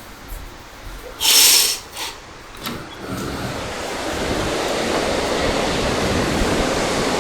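Roar of the Yellow River's Hukou Waterfall, a steady rushing of water that swells up about three seconds in and then holds loud. A short sharp hiss comes about a second and a half in.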